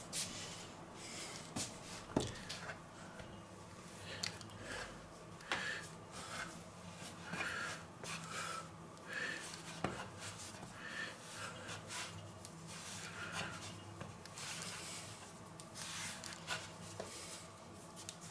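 Hands kneading pizza dough on a floured wooden board: soft, irregular rubbing and pressing, with a few light knocks on the board.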